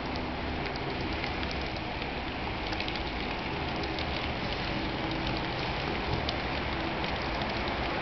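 HO-scale model train, an Electrotren Hellasprinter electric locomotive pulling container wagons, running at steady speed: a steady rushing hiss with a faint motor hum and scattered light clicks of the wheels on the track.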